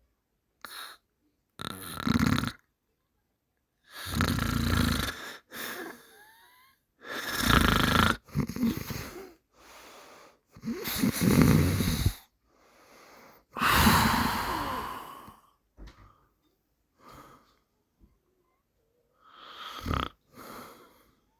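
A person snoring in slow, uneven breaths: about half a dozen snores, each a second or so long, with short quiet gaps between them and a longer pause before the last one near the end.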